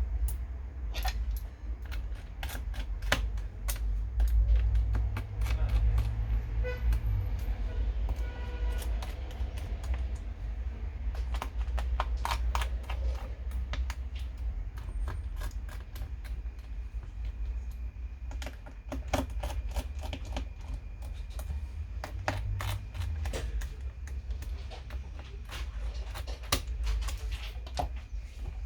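Irregular light clicks and taps from a laptop being worked on by hand, over a steady low rumble.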